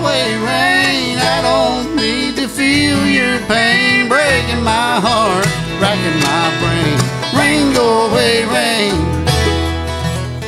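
Bluegrass band playing an instrumental break: a fiddle lead with slides and wavering notes over acoustic guitar, banjo, mandolin and upright bass.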